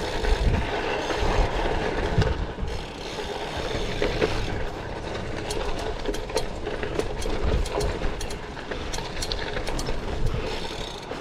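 Bicycle tyres rolling over a dirt jump line with wind rush on the microphone, and a ratchety ticking, likely the rear hub freewheeling while coasting, in quick clusters through the middle and later part.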